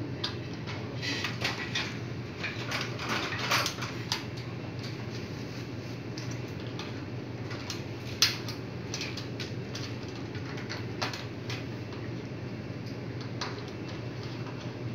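Small clicks, taps and scrapes of hands working wires into a plastic ceiling-mounted fire detector base. They are busiest in the first few seconds, with one sharper click about eight seconds in, over a steady low hum.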